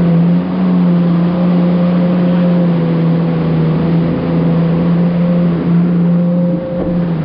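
Jet ski engine running at a steady throttle, holding one droning pitch over a constant rush of noise.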